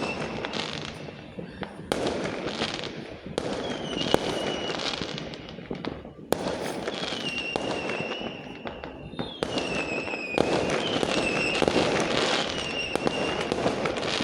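Fireworks going off in a continuous barrage: sharp bangs, dense crackling and several high whistling tones that dip and hold.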